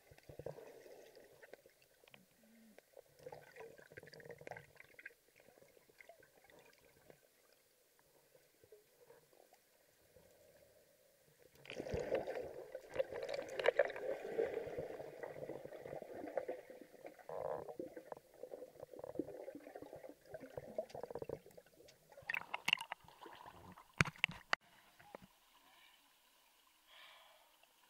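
Muffled water sound heard through an underwater camera moving beneath the surface: gurgling and sloshing, louder from about twelve seconds in. Near the end come a few sharp splashes as the camera reaches the waterline.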